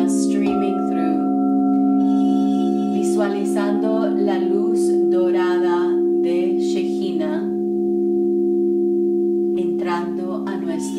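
Quartz crystal singing bowls ringing in long, steady, overlapping tones, with a woman's wordless vocal toning rising and falling over them in phrases, pausing for a couple of seconds past the middle.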